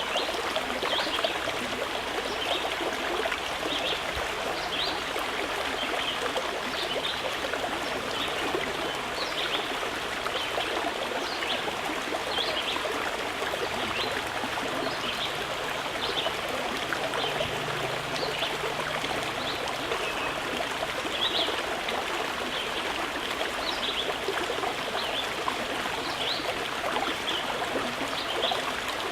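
Running water flowing steadily: a continuous babble with many small trickling splashes on top.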